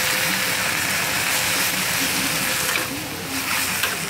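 Egg noodles and vegetables sizzling in a hot wok, a steady hiss of frying with steam. Near the end the sizzle eases and a metal ladle clinks and scrapes against the wok as the stirring starts.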